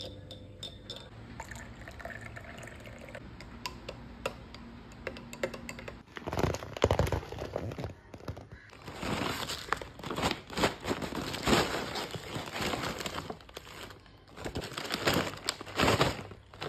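A paper bag and a plastic crisp packet crinkling and rustling as they are handled: loud, irregular crackling from about six seconds in. Before that, quieter liquid sounds and faint clinks of a spoon stirring coffee in a small glass.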